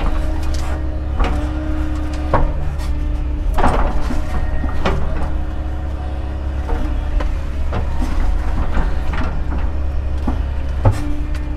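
Doosan excavator's diesel engine running under load, a steady low drone with a hydraulic whine that comes and goes as the controls are worked. Scattered knocks and clunks run through it as the bucket digs and scrapes muck from the ditch, with a sharper knock near the end.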